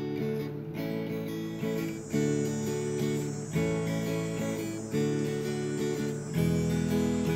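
Background music: strummed acoustic guitar, with a new chord struck about every one and a half seconds.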